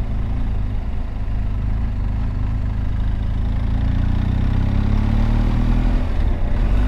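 BMW R 1250 GS Adventure's boxer-twin engine running at low road speed, heard from the rider's position, with its pitch rising gradually in the second half as the bike picks up speed.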